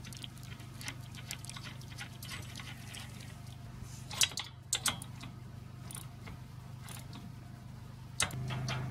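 Small metal clicks and taps as a bolt and nut are fitted by hand through a steel wagon's handle bracket, with a few louder clicks about four to five seconds in. A steady low hum runs underneath and grows louder near the end.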